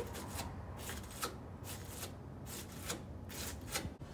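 A hand tool scraping and working at the corner of an aluminium sliding-door panel's rail, in about ten short, uneven strokes, as gunk and the worn old wheels are cleared out of the wheel pocket.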